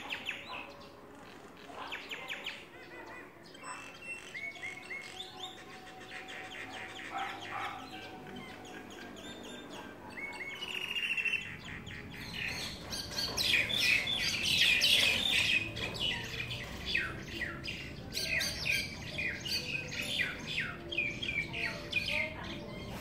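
Common mynas calling: strings of short, repeated chirps and falling whistled notes, sparse at first, then busier and louder from about halfway through.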